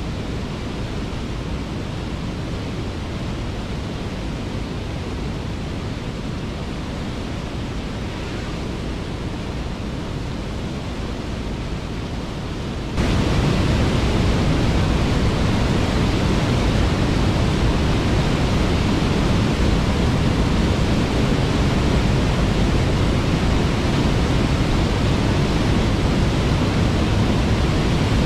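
Waterfall: a steady rush of falling water that jumps suddenly louder about halfway through.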